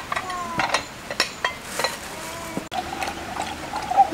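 Plates and cutlery handled at a meal table: scattered clinks and small knocks, with rustling of paper or plastic wrapping.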